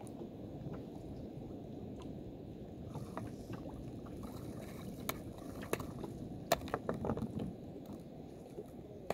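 Water lapping and sloshing against a small boat's hull. A cluster of sharp knocks comes about five to seven seconds in.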